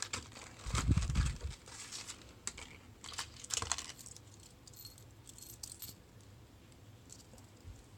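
Lock picking in a cheap pin-tumbler padlock: small metal clicks and rattles of the pick and tension wrench working the pins, with a dull handling knock about a second in.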